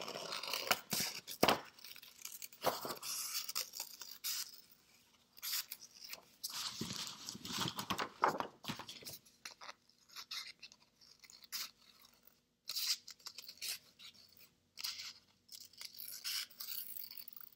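Scissors cutting a small circle out of white paper: irregular snips with paper rustling between them, pausing now and then.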